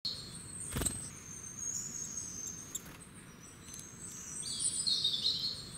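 Small songbirds singing and chirping in a forest, with thin high whistled notes and a louder warbling phrase late on. There is a single soft knock about a second in.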